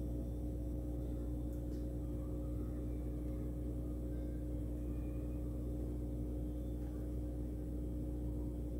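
A steady hum of two constant tones over a low rumble, even throughout.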